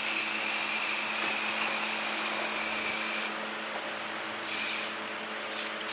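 Spray gun jetting cleaner onto an engine block: a steady hiss with a thin high whistle that cuts off about three seconds in, then one short burst and a few brief spurts near the end.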